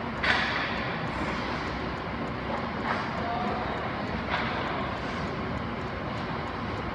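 Sounds of ice hockey play in a rink: a steady background noise, with a sharp crack of play on the ice about a third of a second in and two lighter ones around three and four and a half seconds in.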